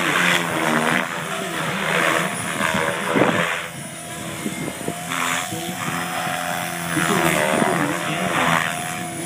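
Electric 550-size Synergy E5 RC helicopter flying hard 3D manoeuvres. A steady motor and gear whine runs under the rotor blades, which whoosh in repeated swells as the head pitch changes.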